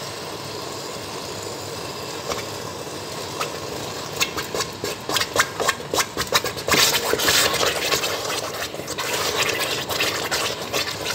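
Pot of thick tomato-and-pepper stew simmering on the stove: a steady bubbling hiss, then quick pops and crackles from about four seconds in.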